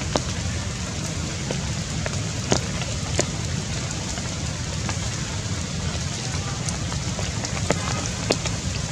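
Steady patter of rain with a low rumble under it, broken by a few sharp ticks like single drops.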